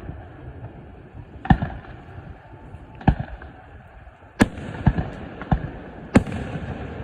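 Fireworks display: aerial shells bursting in sharp bangs, sparse at first, then several in quick succession in the second half.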